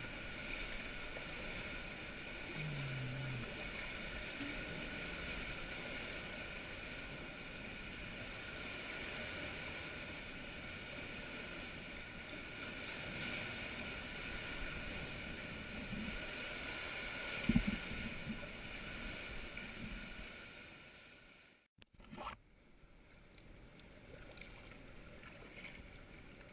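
Kayaks paddling through a sea cave: a steady wash of seawater sloshing and lapping, with paddle strokes and one louder thump about two-thirds of the way through. The sound drops out briefly near the end, and a quieter water wash follows.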